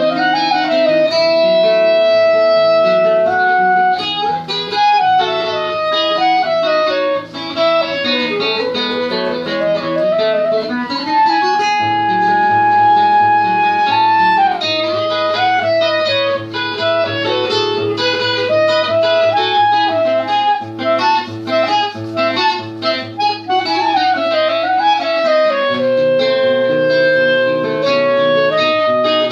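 Clarinet and fingerpicked acoustic guitar playing an instrumental duet: the clarinet carries a melody of quick rising and falling runs and a few held notes over the guitar's plucked accompaniment.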